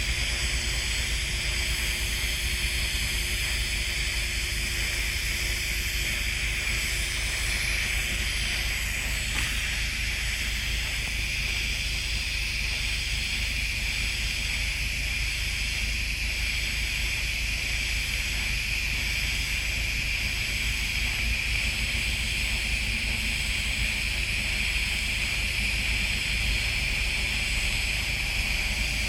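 TIG welding arc burning steadily on pipe: an even hiss with a low hum beneath it.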